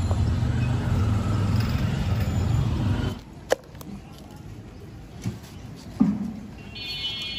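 Low rumble of street traffic that cuts off abruptly about three seconds in. After it, a quieter stretch with a few sharp knocks of a knife on pineapple while it is carved.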